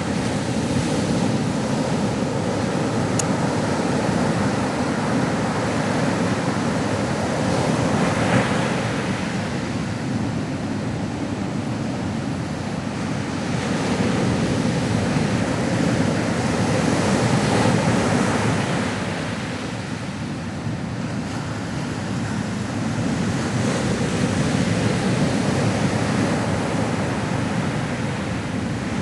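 Ocean waves breaking and washing on the shore, a continuous surf that swells and eases every few seconds.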